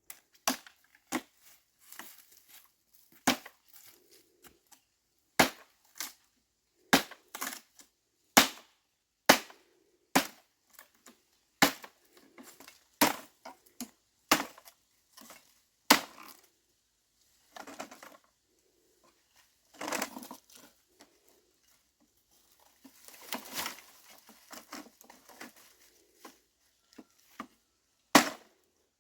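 A series of sharp blows or knocks, roughly one a second and some in quick pairs, with stretches of scraping and rustling between them.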